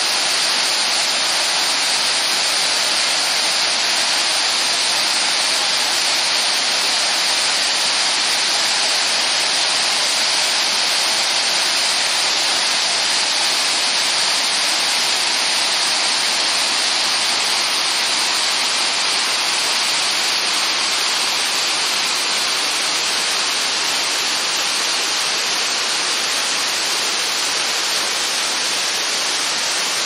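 A waterfall and the white water below it rushing steadily: a dense, unbroken hiss of falling water.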